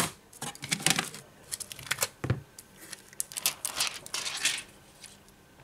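Hands handling the parts of a disassembled Samsung Galaxy S6 edge: the metal frame and display module clicking, knocking and scraping as they are picked up and fitted together, in a string of short clicks and rustles with a duller knock a little after two seconds.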